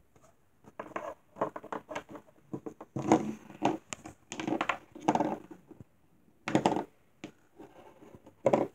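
Small plastic toy figures and dollhouse props being handled and moved about by hand: a run of short, uneven knocks, rattles and scrapes with brief pauses between them.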